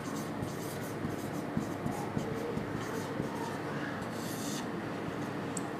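Marker pen writing on a whiteboard: the felt tip scratching and squeaking in short strokes as a word is written out.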